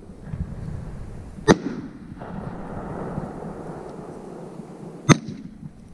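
Aerial fireworks bursting overhead: two sharp booms about three and a half seconds apart, with a steady low noise between them.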